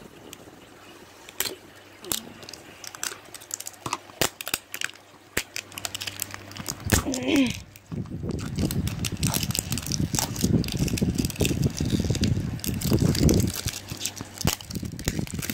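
Plastic surprise-egg packaging handled close to the microphone: scattered clicks and taps, then steadier crinkling and crackling from about halfway through.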